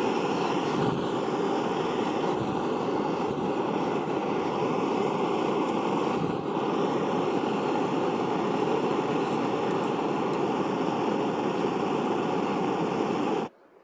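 A steady rushing roar with a faint constant whine in it, cutting off suddenly near the end.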